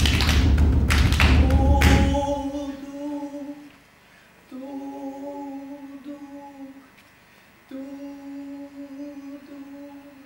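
A voice holding three long, steady notes with little change in pitch, each two to three seconds long with short pauses between. They follow about two seconds of loud noise with knocks and a deep rumble at the start.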